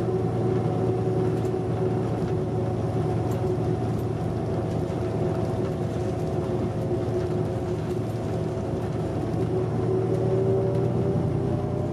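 Cummins ISM straight-six diesel of a New Flyer D40LFR transit bus running under way with its Voith automatic transmission, heard inside the passenger cabin. A steady drone over road rumble, its pitch rising slightly near the end.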